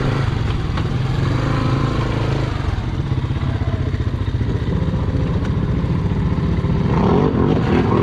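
Honda ATV engine running at a low, steady speed as the quad crawls along a muddy trail.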